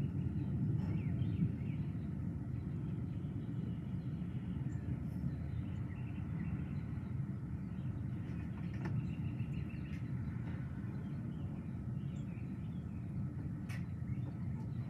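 Outdoor ambience under a gathering thunderstorm: a low steady rumble that eases off a little in the first couple of seconds, with faint bird chirps over it.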